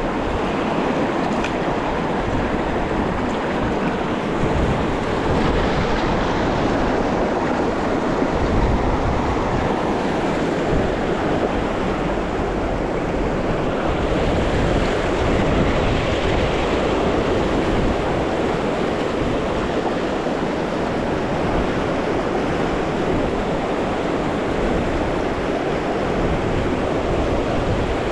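Steady rush of river water pouring through a shallow riffle.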